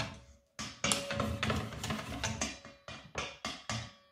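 Wire whisk beating thin batter in a stainless steel bowl, clinking and tapping against the metal in quick, irregular strokes, with a brief pause about half a second in.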